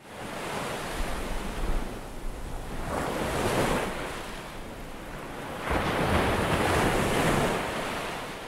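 Ocean surf: waves washing in and breaking, with two louder surges, one about three seconds in and a longer one about six seconds in.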